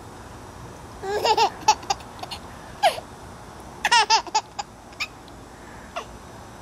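A baby laughing in short bursts, in two main bouts about a second in and about four seconds in, with single short laughs between.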